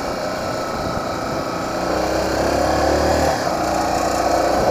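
Small motorcycle's engine running while riding, rising gradually in pitch and loudness as it speeds up, with wind rushing over the microphone.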